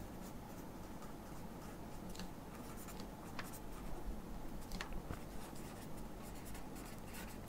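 Faint scratching of a pen writing on paper, with a few sharp ticks as the pen strokes and touches down between letters.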